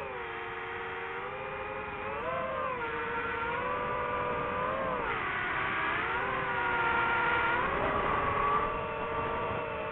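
DJI FPV drone's motors and propellers whining in flight, the pitch rising and falling several times as the throttle changes, loudest a little after the middle.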